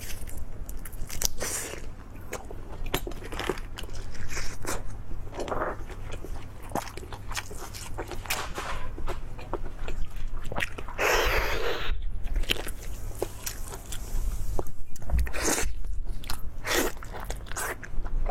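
Close-miked person chewing and biting into food with crunching, irregular mouth noises, with a longer, louder rush of noise about eleven seconds in.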